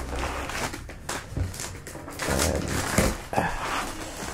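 Clear plastic wrapping around a laptop crinkling and rustling as hands handle it inside its cardboard box, in irregular bursts with a few louder crackles.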